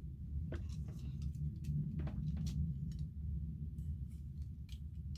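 Faint scattered rustles and small clicks of hair and a 2-inch clamp curling iron being handled as a section is picked up and clamped, over a steady low hum.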